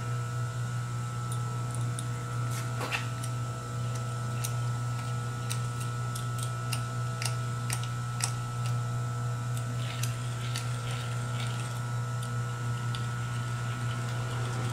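Steady low hum with light, scattered clicks and scrapes of a hand deburring tool worked around the edges of the bolt holes in a Ford Golden Jubilee tractor's rear axle bearing hub. A denser run of scraping comes about ten seconds in.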